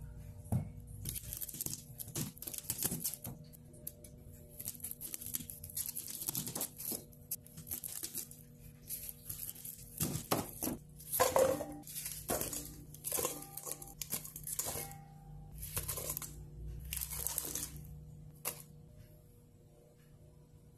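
Dry papery garlic skins crackling and tearing as the bulb is broken apart and trimmed with a kitchen knife on a plastic cutting board, in a run of short rustling bursts that stop near the end.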